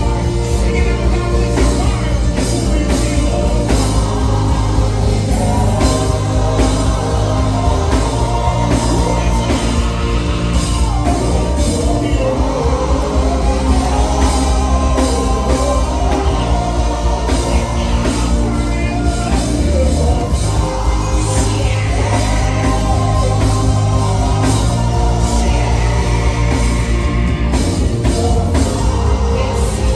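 Live gospel worship music: a band with a steady, heavy bass, and a male lead singer with backing vocalists singing over it.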